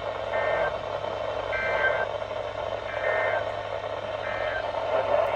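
NOAA Weather Radio SAME data bursts: four short two-tone digital chirps, about every second and a half, over steady radio static. They mark the end of the warning message.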